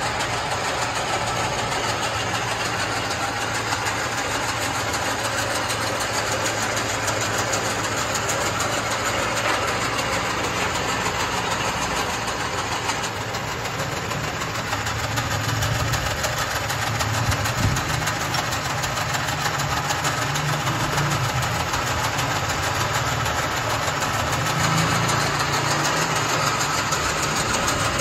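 Horizontal milling machine running, its gear cutter cutting teeth into a gunmetal worm wheel: a steady machine drone with a fast, even chatter from the cut. A low hum grows stronger about halfway through.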